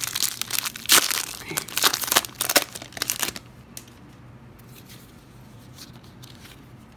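Trading card hanger pack's wrapper being torn open and crinkled for about three seconds, then only faint rustling as the cards are handled.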